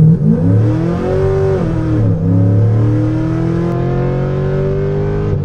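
Cammed C6 Corvette's V8 engine pulling at full throttle, revs climbing, dipping sharply about two seconds in, then climbing steadily again.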